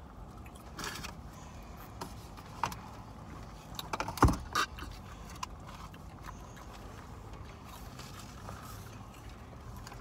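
Small clicks and knocks from handling fast-food cups, straws and a spoon while eating in a car, the loudest knock about four seconds in, over a low steady hum.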